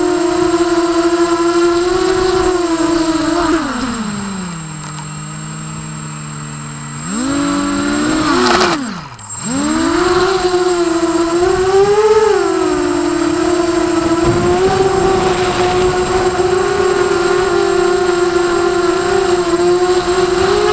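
Emax Nighthawk 280 Pro FPV quadcopter's electric motors whining. The pitch drops to a lower hum about four seconds in, climbs sharply back up, dips once more briefly near nine seconds, then holds steady at a high whine as the throttle changes.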